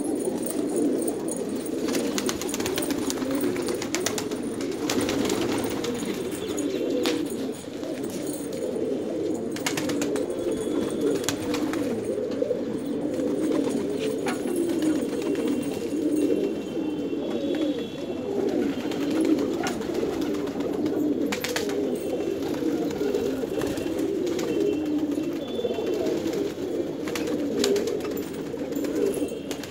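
A flock of domestic gola pigeons cooing without a break, many low coos overlapping, with occasional short clicks.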